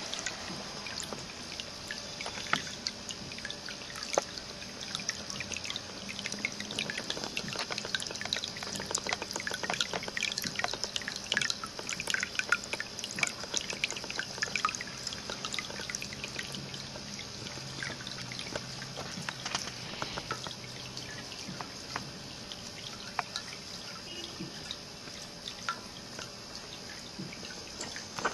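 Tabletop ceramic pet fountain running: water trickling and dripping steadily into its basin, with many small irregular drips and splashes.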